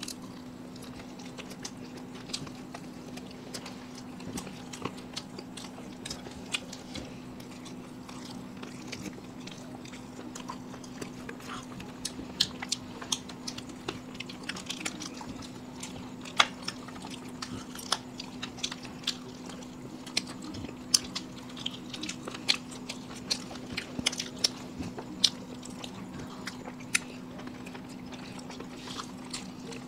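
Close-miked biting and chewing of fried chicken lollipops, with scattered crisp crunches and clicks that grow busier about halfway through, over a steady low hum.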